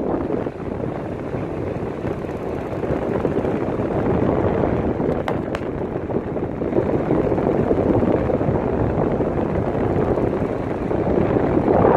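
Sharp split air conditioner indoor unit's blower fan running, its airflow rushing across the microphone as a steady wind-like noise that swells and eases a little.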